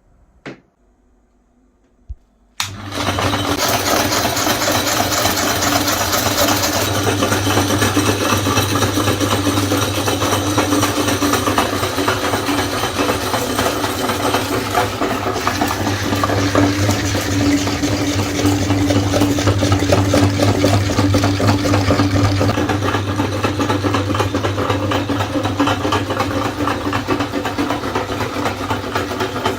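Electric meat grinder switched on about two and a half seconds in, its motor then running steadily with a strong low hum. Two short clicks come before it starts.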